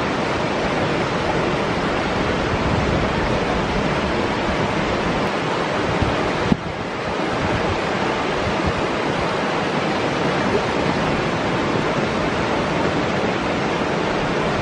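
Steady rushing of flowing water, with a short click and brief dip about six and a half seconds in.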